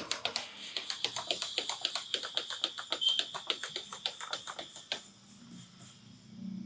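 A barber's hands slapping and tapping rhythmically on a customer's head in an Indian head massage (champi): quick strikes, about six a second, that stop about five seconds in. A faint steady high tone sits behind them.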